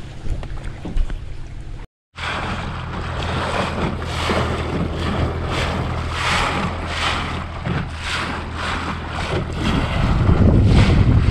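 Wind buffeting the microphone and water splashing against a small boat's hull on open water, over a steady low hum; the wind gets louder near the end. The sound cuts out briefly about two seconds in.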